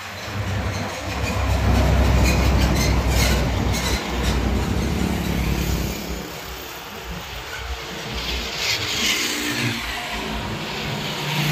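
A Hino 500 container truck's diesel engine rumbling as it drives past, loudest a couple of seconds in, with a few rattles from the rig. It fades by about halfway through, and motorcycles pass later on.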